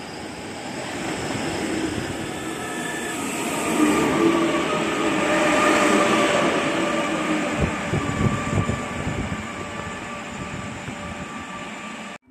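A train passing on the track. Its running noise and a steady whine build to a peak about five seconds in, then fade, with wheels knocking over rail joints about eight seconds in. The sound cuts off suddenly near the end.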